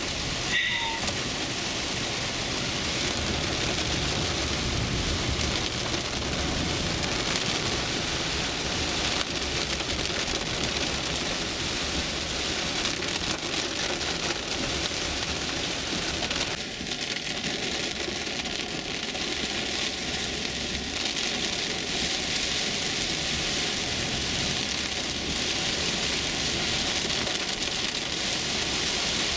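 Heavy rain pelting the body and windshield of a moving car, heard from inside the cabin as a dense, steady patter.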